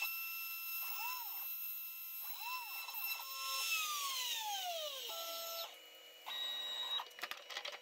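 CNC router milling a plywood part: a steady spindle whine, with the stepper motors sounding short rising-and-falling tones twice as the cutter traces its path. About four seconds in the whine falls steadily in pitch as the spindle spins down, followed by short steady motor whines as the head moves away.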